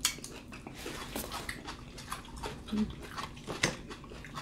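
Close-miked eating sounds: chewing and mouth smacks, with forks clicking and scraping in takeout food containers, as a run of short clicks.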